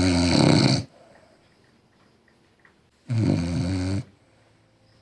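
A person snoring loudly: one snore fades out about a second in and the next comes about three seconds in, each lasting roughly a second, with quiet breathing pauses between.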